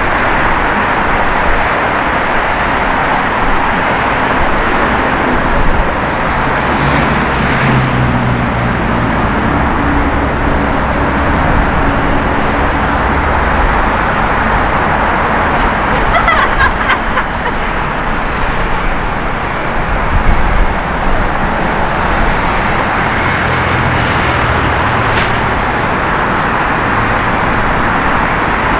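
Steady city street traffic noise. A vehicle's engine hum rises above it for a few seconds twice, near the first third and again near the end.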